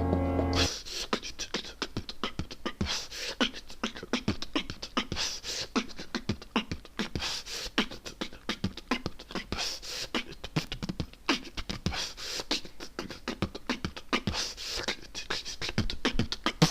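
Beatboxing: fast, dense vocal percussion of mouth-made kicks, clicks and hissing hi-hat sounds. A steady low hum cuts off suddenly under a second in, and the beatboxing starts.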